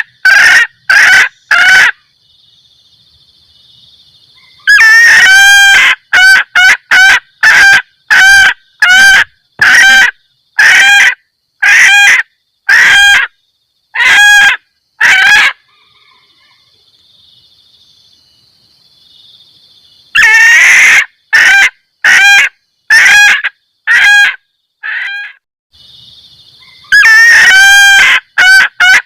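Female red junglefowl cackling, a repeated 'kekkek' mating call that draws in males: four bouts of short, loud calls about two a second, separated by pauses. In the pauses a faint steady high buzz remains.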